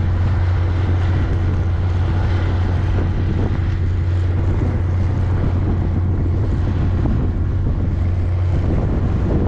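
Strong gale-force wind buffeting the microphone: a steady, loud low rumble with a rushing hiss over it.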